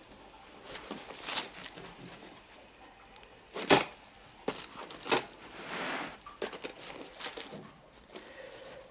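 A steel rule and a marking pen handled on fabric while cutting points are marked out: scattered sharp clicks and knocks, with a short scraping slide midway as the rule is shifted along.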